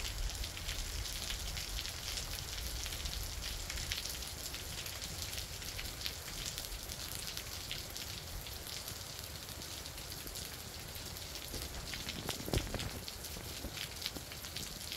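Steady spring rain falling, a dense patter of fine drops over a low rumble, with one brief louder thump near the end.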